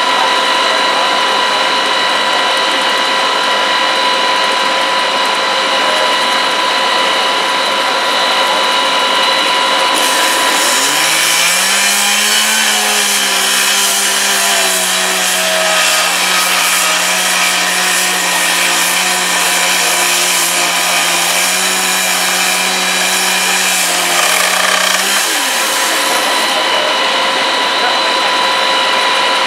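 Firefighters' powered rescue equipment running with a steady mechanical whine. About eleven seconds in, a motor revs up and runs under load with added hiss, then drops away near twenty-five seconds, as a hydraulic tool forces a door.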